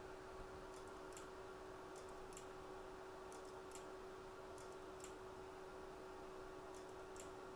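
Faint steady hum with about ten soft, irregularly spaced light clicks.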